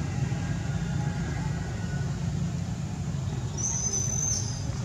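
Steady low outdoor rumble, with a brief high-pitched whistle-like call a little over three and a half seconds in.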